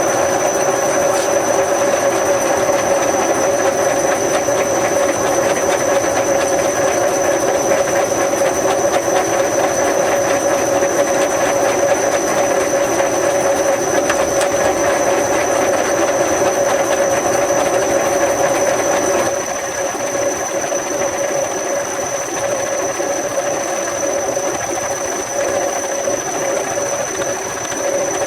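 Milling machine running steadily with a constant whine, cutting into a motor's stator windings. The sound drops a little in level about two-thirds of the way through.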